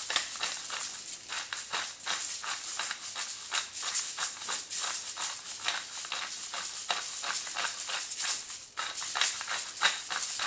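Hand-twisted pepper grinder cracking peppercorns over a bowl: a rapid, dry, gritty crackle that keeps going, with a short break about nine seconds in.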